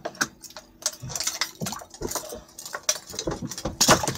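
Light clinking and ticking of a metal-hooked fishing lure being handled as it is worked free of a fish, in short irregular clicks, over a faint steady hum.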